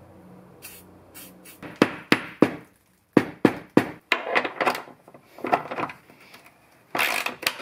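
Hand ratchet wrench working a bolt on the car's lower front bracket to take off the power steering cooler: sharp ratchet clicks in two short runs of three, then rougher metallic knocks and rattles of tool and parts.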